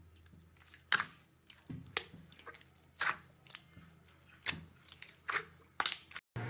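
Glossy slime being squeezed, stretched and poked by hand, giving irregular sharp clicks and pops as small pockets of air burst, roughly one every half second to second.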